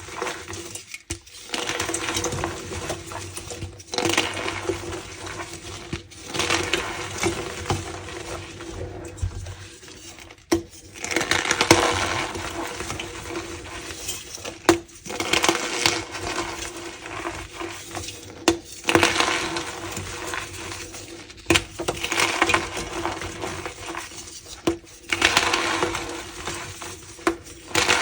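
Blocks of dyed gym chalk being crushed and squeezed by hand, crunching and squeaking in about eight bouts of a few seconds each with short pauses between them.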